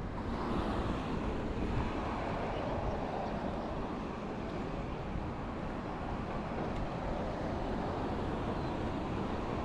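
Street traffic noise: a vehicle passes during the first few seconds, over a steady low rumble.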